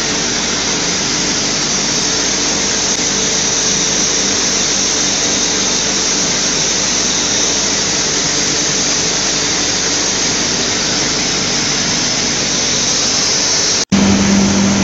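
Belt filter press running as it dewaters sand-washing slurry: a loud, steady hiss with a faint hum beneath. The sound breaks off for an instant near the end and comes back louder with a steady low hum.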